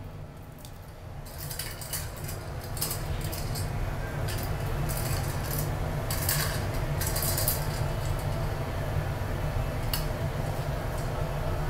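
A cat toy clinking and rattling on a tile floor as a kitten bats it about, in irregular bursts of small clicks starting about a second in, over a steady low hum.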